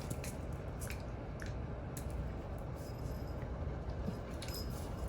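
Two dogs play-wrestling, a mini dachshund puppy and an older dog, heard as faint scattered clicks and soft scuffling over a low steady hum.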